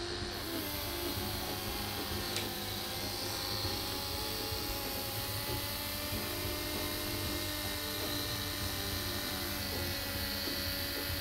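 Electric dog grooming clippers running steadily, a motor hum with a high whine, as the blade is run through the curly coat on a Bedlington terrier's throat and neck.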